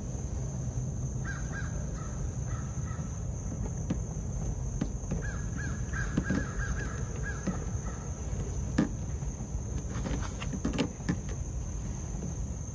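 A bird calling in two runs of quick repeated short notes, over a steady high background whine. Near the end, a few sharp clicks as a hand flaring tool is turned to flare copper refrigerant tubing.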